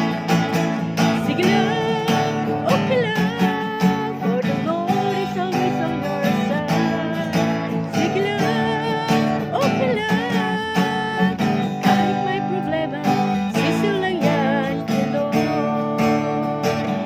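Music led by acoustic guitar, with a singing voice wavering through the melody.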